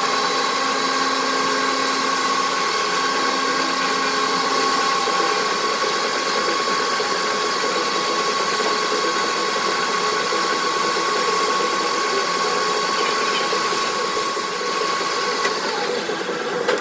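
Machine tool running steadily while a hole is drilled into a metal workpiece, with an even whine over the motor noise that stops shortly before the end.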